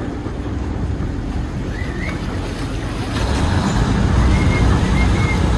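River boat's engine rumbling with water churning and splashing against the hull as it comes alongside a pier, growing louder about three seconds in. A few short, high whistle-like chirps sound over it.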